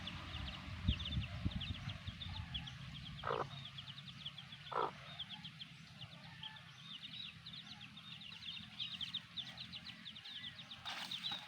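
Chicks peeping continuously in many quick, high chirps, with two short lower calls from the mother hen a few seconds in.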